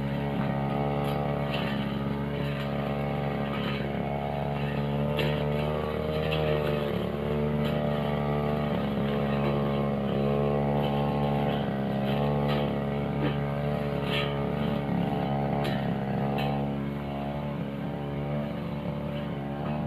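Backpack brush cutter's small engine running at working speed, its pitch wavering up and down as the blade cuts through grass and weeds, with occasional sharp ticks as the blade strikes woody stems. It eases a little near the end.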